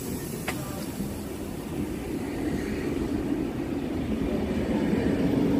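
DSB double-deck passenger train rolling past a station platform, a steady rumble of wheels on rails that grows louder toward the end.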